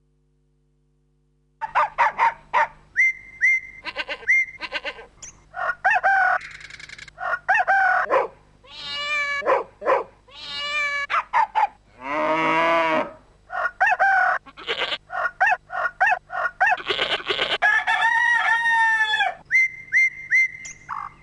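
A string of animal-like calls, several of them long and bending in pitch, between rapid clicks and short steady beeps. It starts after about a second and a half of silence.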